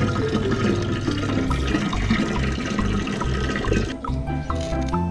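Water splashing and running steadily, with a regular music beat underneath; the water noise thins out about four seconds in as the music comes forward.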